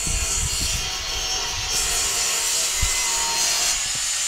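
A power tool running steadily with a rasping, hissy sound, with a couple of short low thumps.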